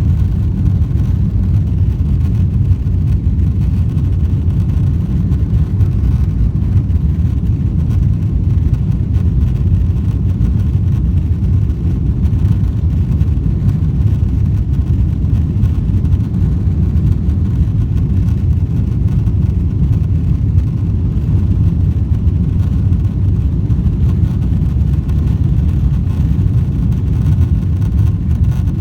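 Steady low rumble of a vehicle in motion, unchanging in level throughout.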